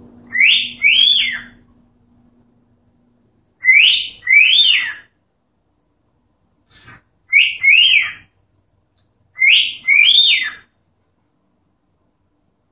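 Cockatiel whistling a two-note phrase four times, about every three seconds, each note a quick rise and fall in pitch.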